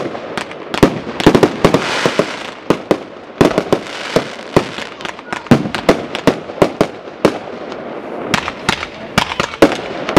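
Fireworks display: aerial shells bursting in quick, irregular succession, many sharp bangs over a continuous rushing, crackling noise.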